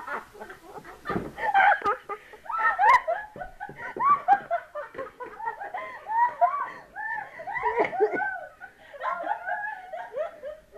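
Young women laughing in long, continuous fits of giggles, with quick peals that rise and fall in pitch one after another.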